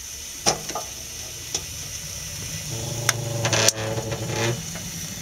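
Metal wood stove door being unlatched and swung open onto a burning wood fire: scattered sharp metal clicks and knocks, with a steady low drone for about two seconds from just past halfway.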